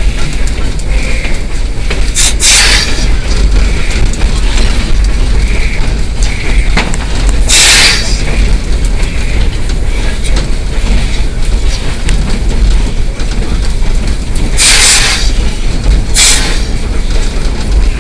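Cab of narrow-gauge steam locomotive No. 190 under way: a loud, steady rumble and clatter of the running engine and wheels. Four short bursts of hiss break in, about two seconds in, near eight seconds, and twice near the end.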